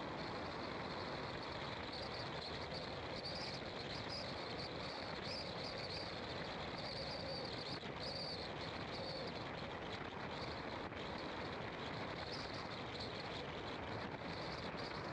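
Car driving: steady road and engine noise, with a high, wavering hiss on top.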